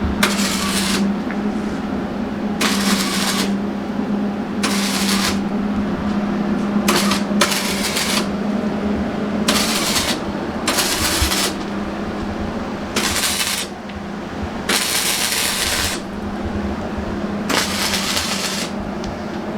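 Electric arc welding on a demolition derby car, done in about ten short crackling bursts, each under a second to about a second long, one to two seconds apart. A steady low hum runs underneath.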